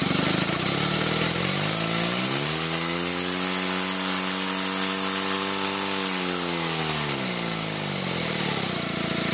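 Stuart Sirius twin-cylinder model steam engine running unloaded on compressed air, speeding up about two seconds in as the throttle is opened, holding a fast even speed, then slowing near the end. A steady high exhaust whistle runs over it.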